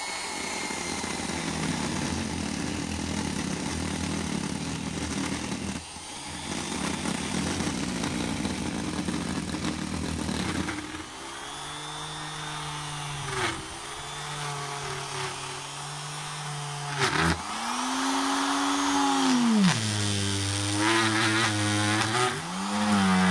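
Straight grinder (die grinder) running with a burr in olive wood, a steady motor whine with grinding noise. In the second half its pitch sags and comes back several times.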